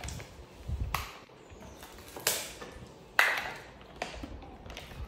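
A few separate sharp taps and knocks of plastic feeding bottles and containers being handled in a wicker basket, the loudest a little over three seconds in.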